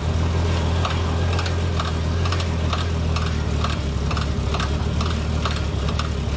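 The Jeep Cherokee's 4.6-litre inline-six idling steadily, with a light regular ticking about three times a second.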